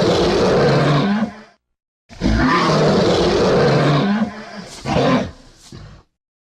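Fan-made Shin Godzilla roar sound effects: one roar fades out about a second and a half in, and after a brief gap of dead silence a second roar of about three seconds follows, trailing off in a few fading bursts before cutting to silence near the end.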